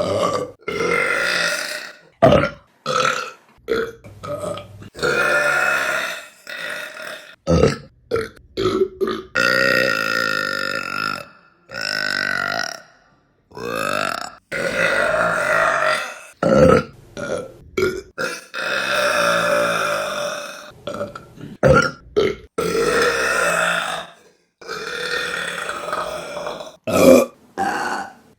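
A rapid string of women's burps, one after another. Several are long, drawn-out belches of a second or two, with many short ones in between and abrupt cuts from one to the next.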